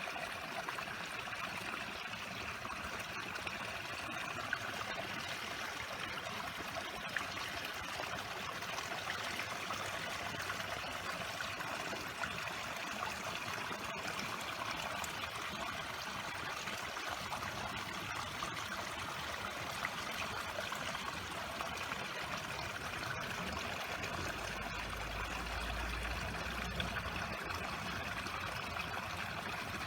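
A stream running steadily, a continuous trickle of flowing water.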